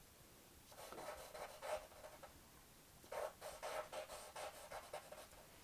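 Faint scratching of a charcoal stick on drawing paper in quick short strokes. There are two runs of strokes: one about a second in, and a longer one from about three seconds in.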